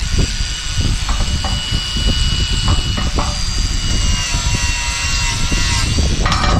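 Electric angle grinder running steadily against a steel beam, a high motor whine over a low rumbling noise.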